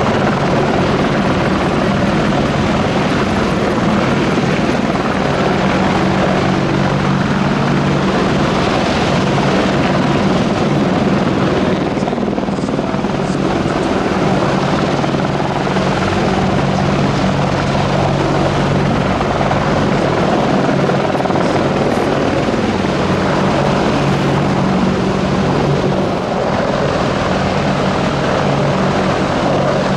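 Two AgustaWestland Apache AH1 attack helicopters hovering and manoeuvring low, their main rotors and twin Rolls-Royce Turbomeca RTM322 turboshaft engines making a loud, steady rotor drone.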